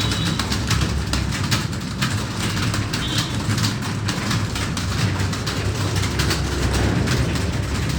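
Many computer keyboards clattering at once, a dense, uneven run of fast key clicks from a room of people typing, over a steady low hum.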